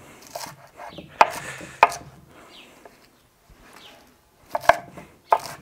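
Kitchen knife chopping iceberg lettuce on a cutting board: sharp, irregular knocks of the blade striking the board, a few in quick succession, with a quieter stretch in the middle.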